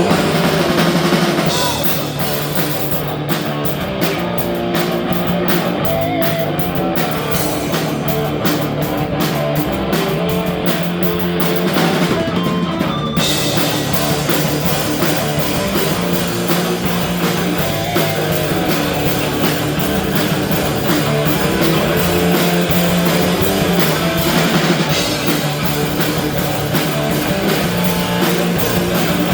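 Rock band playing live: guitar, bass and drum kit in a continuous loud song, the sound filling out at the top about thirteen seconds in.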